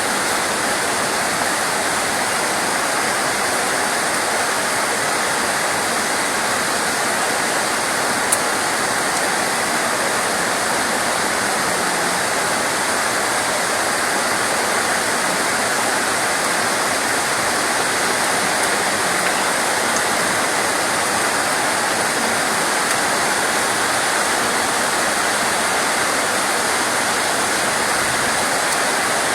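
Steady rain, an even unbroken hiss of falling water, with a single faint click about eight seconds in.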